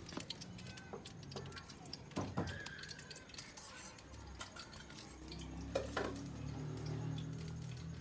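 Scattered clinks and knocks of steel kitchen utensils, a ladle and steel pots and plates being handled, some with a brief metallic ring. A low steady hum comes in about halfway through.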